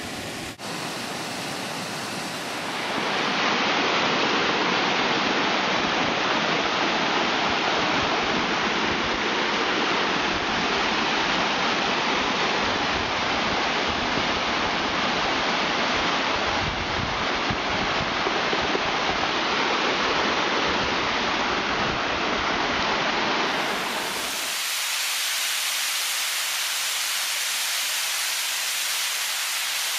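Rushing water of a mountain waterfall pouring over rock slabs, a steady, even noise. Its tone changes abruptly about three seconds in and again near 24 seconds, after which it sounds thinner, with the low rumble gone.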